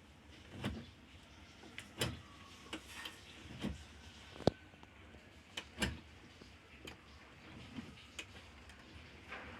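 A series of irregular sharp clicks and knocks, about one a second, as of tools and plastic or metal parts being handled and set down.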